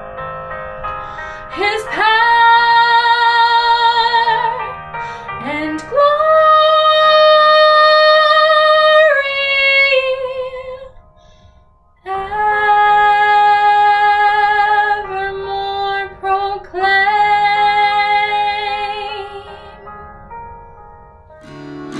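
A woman singing a Christmas carol in long held notes with vibrato, breaking off briefly about halfway through before singing on.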